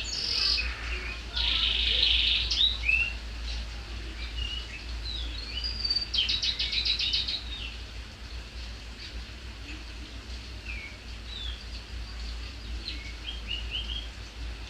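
Domestic canary singing a shrill song: rapid trills and short chirps, loudest in the first few seconds, with a fast trill about six seconds in, then sparser chirps.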